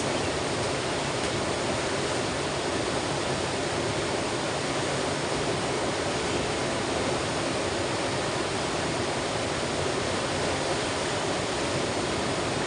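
River water rushing steadily and evenly, swollen and running high after rain upstream the night before.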